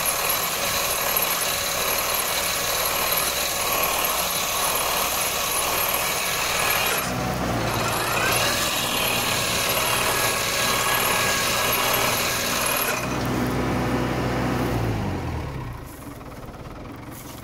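Olive tree shaker machine running steadily as it shakes the tree. Its tone shifts about seven seconds in, then near the end it slows with a falling pitch and the sound drops away.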